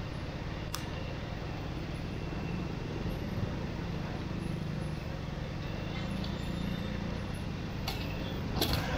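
Street traffic noise with a vehicle engine running close by, its hum growing a little louder through the middle. A few sharp clicks, the loudest near the end.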